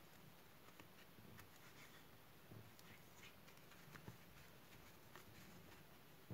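Near silence with faint soft ticks and rustling of a crochet hook and yarn being worked through single crochet stitches.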